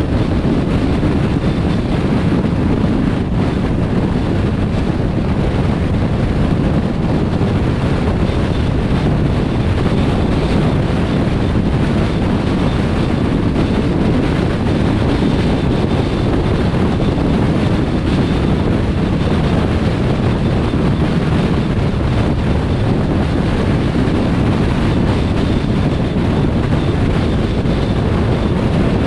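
Steady road and wind noise of a car cruising at motorway speed: an even, unbroken rumble of tyres and rushing air, heaviest in the low end.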